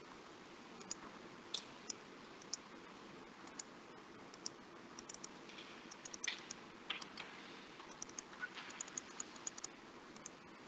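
Faint, irregular clicking of a computer keyboard, with keystrokes scattered and bunched more thickly in the second half, over a low hiss, heard through a video-call connection.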